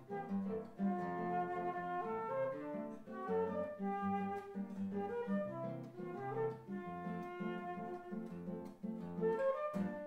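Concert flute and classical guitar playing a samba-choro duet: the flute carries a melody of held and moving notes over the guitar's rhythmic plucked bass and chords.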